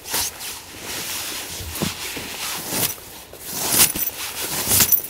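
Hands scraping and scooping snow and flinging it aside, with the rustle of a nylon down jacket. A few sharper scrapes come toward the end.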